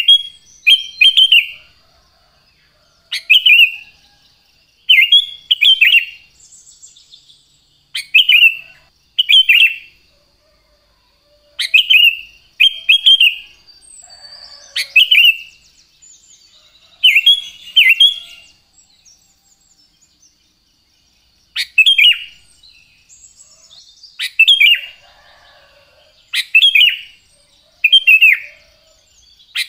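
Sooty-headed bulbul (kutilang) singing: loud, short phrases that drop in pitch, often in pairs, repeated every one to two seconds, with fainter twittering between them.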